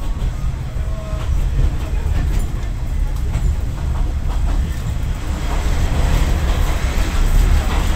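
Kominato Railway KiHa 200 diesel railcar running at speed, heard from inside the passenger car: a steady heavy rumble of engine and wheels on rail, with short clacks of the wheels over rail joints, growing a little louder in the second half.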